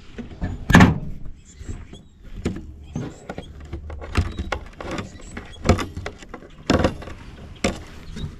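Irregular clicks and clunks of a tool and loose metal parts as screws are worked out of a metal housing, with one louder knock about a second in.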